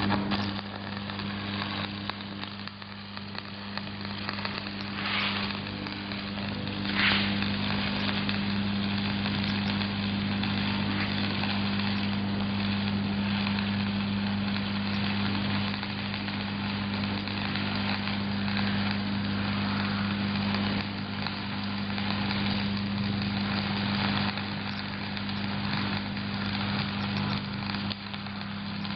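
Shielded metal arc (stick) welding arc crackling and sizzling steadily as an electrode burns, with a steady low hum underneath.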